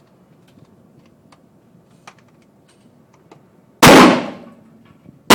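A single AR-15 rifle shot about three-quarters of the way in, a sharp crack that dies away over about half a second, with the next shot just starting at the very end. Before it, only faint small ticks.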